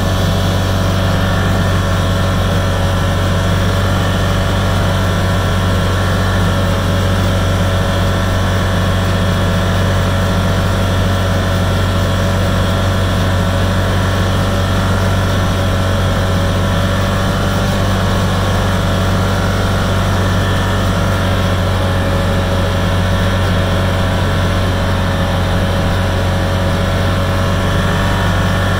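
Side-by-side UTV's engine running at a steady pace while driving, heard from on board: a steady, unbroken drone.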